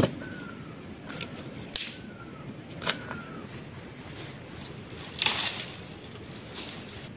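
Footsteps snapping and crunching on dry twigs and pine litter, with a rustle of brushing through dry bushes about five seconds in. A bird repeats a short falling whistle several times during the first half.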